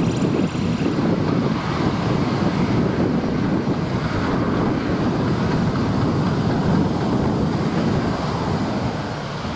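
Boeing 737 CFM56 jet engines at taxi power, a steady rumble, mixed with wind buffeting the microphone.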